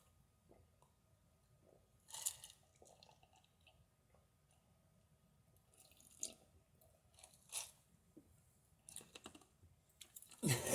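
Faint gulps and swallows of water with crushed ice, a few spaced-out sounds several seconds apart. Near the end a louder cough starts as she nearly chokes on a small piece of ice.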